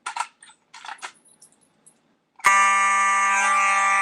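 A few light clicks, then a fire alarm starts suddenly about two and a half seconds in, sounding one loud, steady tone.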